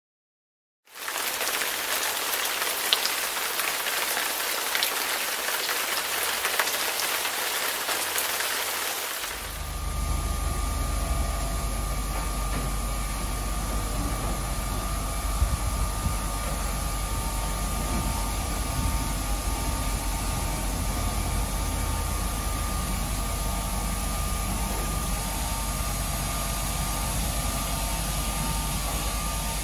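WashTec rollover car wash at work: a steady hiss of water spraying onto the car starts about a second in. About nine seconds in, a low machine hum and a thin steady whine join it.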